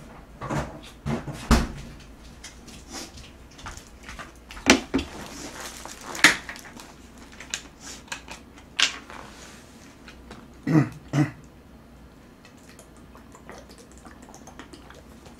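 Handling noise: scattered knocks, clicks and rustles as a plastic juice bottle is brought to the table and its cap twisted open, with two short hums a little past the middle.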